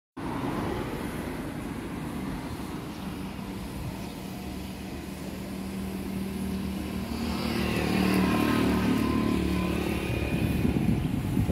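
Road traffic: a motor vehicle's engine running with a steady hum, growing louder as it passes and loudest about eight seconds in.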